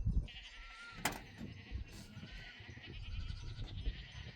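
Livestock bleating in long, wavering calls, with a couple of sharp clicks or knocks about one and two seconds in.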